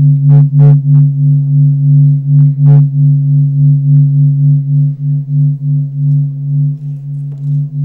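A low, steady droning tone that pulses in loudness about three times a second, with a few short clicks in the first three seconds.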